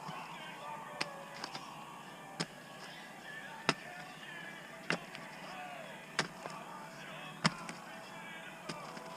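Hand digging tool striking into soil and rock at a steady working pace, a sharp strike about every second and a quarter, some followed by small clicks of loosened debris.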